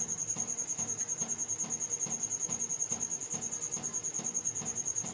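A cricket chirping: a steady, high-pitched trill of rapid, even pulses, with a fainter low pulsing underneath.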